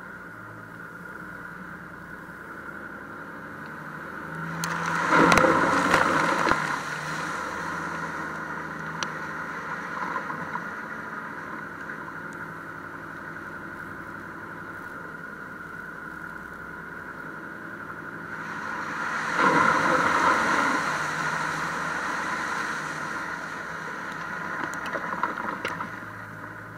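Toyota Land Cruiser off-roading on a dirt track, its engine running steadily with tyre and wind noise, heard from outside the body by the rear wheel. It swells into two louder stretches of rushing noise, about five seconds in and again about twenty seconds in.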